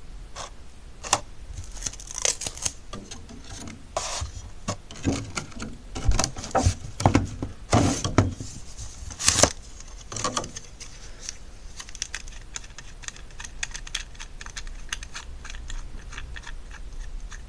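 Hard plastic camera accessories being handled and set down on a table: irregular clicks, taps and light scraping, busiest in the middle.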